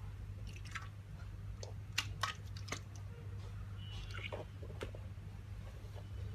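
Plastic sports spray water bottle being handled: a few sharp plastic clicks, the loudest pair about two seconds in, and small wet squishing sounds over a steady low hum.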